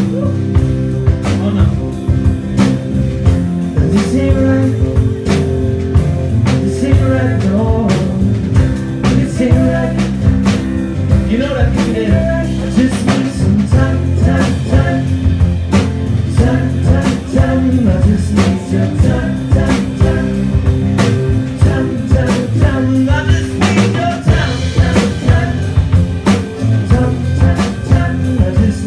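Live rock band playing: a drum kit keeping a steady beat under electric guitar and bass.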